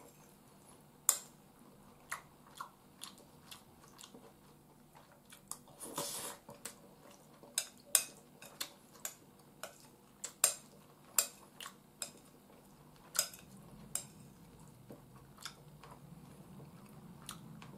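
Metal spoon clinking and scraping against a ceramic bowl of curry and rice in irregular sharp clicks, with quiet chewing between spoonfuls. A short rustle comes about six seconds in.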